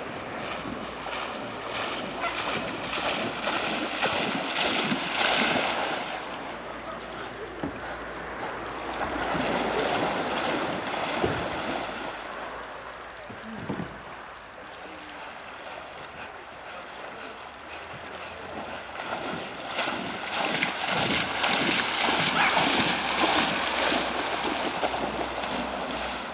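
Appenzeller Sennenhund swimming through a river, with water splashing and churning around it. The splashing swells in louder stretches a couple of seconds in, around ten seconds in, and again from about twenty seconds in.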